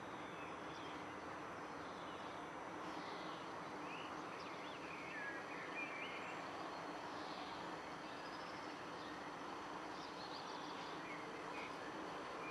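Steady outdoor background noise with birds chirping now and then over it.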